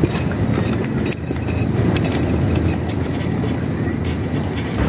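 Light metallic clicks of a portable camping gas stove's folding pot-support arms being opened out and the stove set down. A steady low rumble runs underneath.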